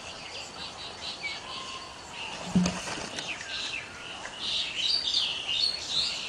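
Birds chirping and calling continuously in the background, with a single dull thump about two and a half seconds in as a baby elephant falls over onto the ground.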